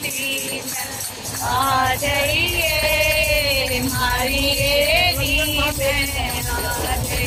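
Music: a melodic voice singing over a jingling, tambourine-like percussion, with a steady low rumble underneath.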